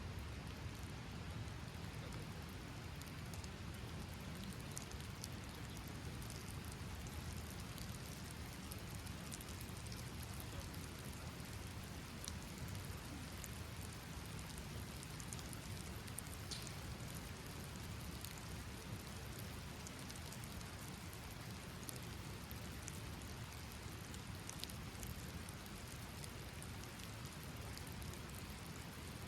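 Steady rain falling, with scattered sharp ticks of single drops now and then.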